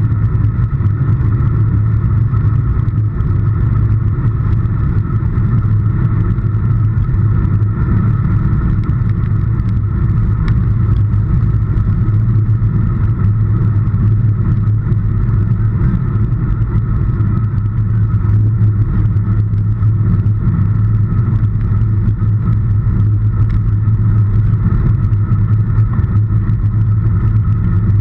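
Steady, loud rumble of wind and road noise on a handlebar-mounted camera on a road bike riding at speed on tarmac, with tyre hum.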